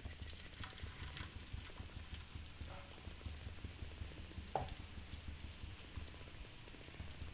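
Steel ladle tapping and scraping lightly on a hot dosa griddle as adai batter is spread into a round, with one sharper clack about four and a half seconds in.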